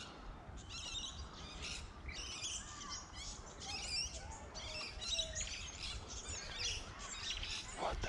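Small bush bird of an unidentified species singing: short clusters of high chirps and twitters, repeating about every second.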